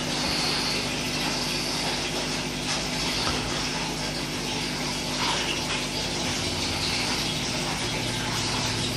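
Aquarium water bubbling and rushing steadily from an air stone and the filter's water return, with a steady low hum beneath.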